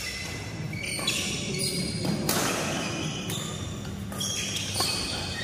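Badminton rally: racket strings striking the shuttlecock several times, about a second apart, each hit echoing, with sneakers squeaking on the court mat in between.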